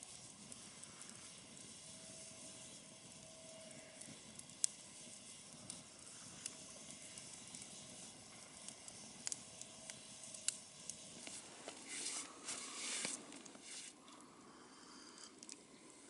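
Wood campfire crackling: a low hiss with sharp pops every second or two. A louder rushing noise stands out for about a second around three-quarters of the way through.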